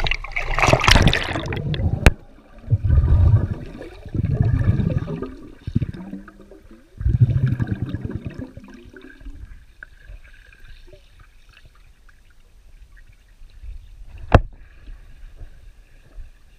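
A large black dog splashes into a swimming pool. The sound then turns muffled and low, heard from underwater, with three rumbling surges of churned water as the dog swims, fading to a quieter wash with a single sharp click near the end.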